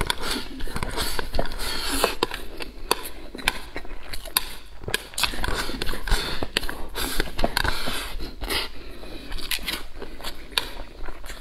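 Close-miked eating of purple rice: mouthfuls sucked and pushed in off a steel tray with chopsticks, giving wet sucking and smacking with many small sharp clicks of chewing and chopsticks.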